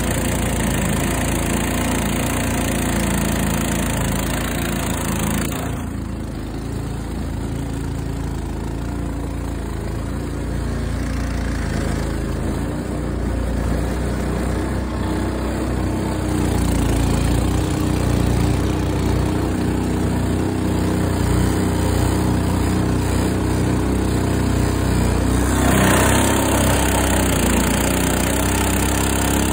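Predator 212cc clone single-cylinder four-stroke engine on a long-tail mud motor, running steadily under way and pushing the boat. The sound turns duller for most of the middle stretch and brightens again near the end.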